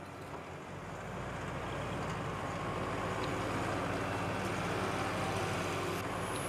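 Diesel engine of a tracked hydraulic excavator running steadily, growing louder over the first couple of seconds and then holding.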